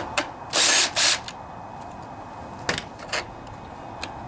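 Hand-tool and metal handling noises as the nuts and bolt holding the air filter housing come off a small engine: two short rasping bursts about half a second and a second in, then a few sharp clicks.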